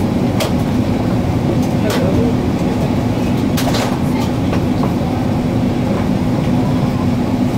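Steady cabin roar of an Airbus A380 in flight, from its Rolls-Royce Trent 900 turbofans and the airflow over the fuselage, with a steady hum and a few brief clicks.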